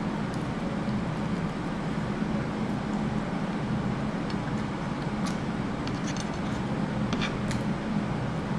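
Steady low mechanical hum with a wash of noise, with a few faint short clicks in the second half.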